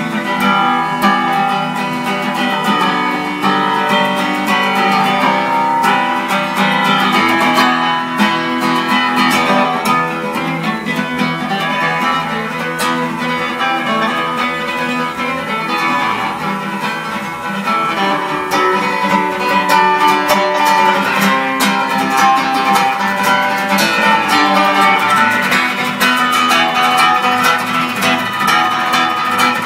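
Acoustic guitar played solo, fast picked notes and strummed chords.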